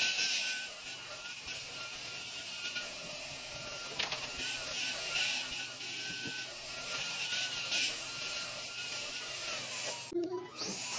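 Cordless stick vacuum running, its motor whine wavering slightly in pitch over a steady rush of suction air. It breaks off abruptly about ten seconds in.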